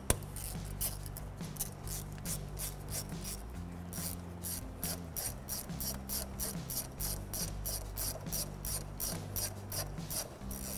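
A 10 mm ratchet clicking steadily, about three to four clicks a second, as it tightens down a radiator hose clamp.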